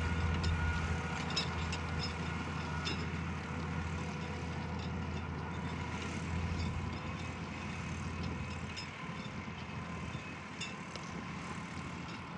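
John Deere 7290R tractor's diesel engine running under load while ploughing, a steady low drone that grows gradually fainter through the second half.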